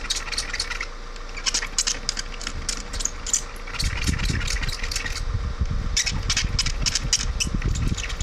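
A cloth rubbing on windshield glass: runs of quick squeaks and swishes as the freshly repaired crack area is wiped clean. A low rumble joins about four seconds in.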